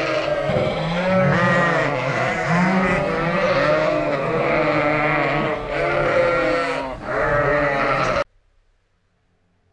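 A large flock of sheep bleating at feeding time, many loud calls overlapping at once, cut off abruptly near the end.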